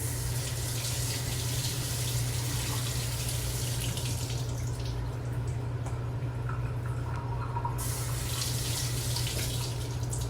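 Kitchen tap running as a grapefruit is washed under the stream. The water's hiss thins about halfway through and comes back strongly near the end, over a steady low hum.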